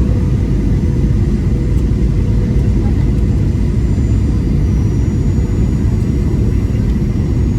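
Steady cabin rumble of a Boeing 737-800 airliner: engine and airflow noise, low and even, with a faint steady hum on top.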